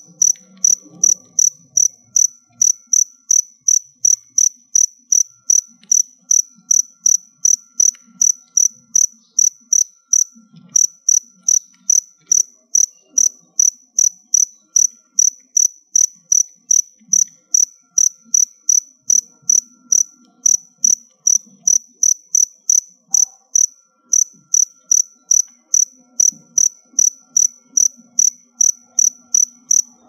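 A cricket chirping steadily: short high chirps, a little over two a second, with a couple of brief breaks in the rhythm.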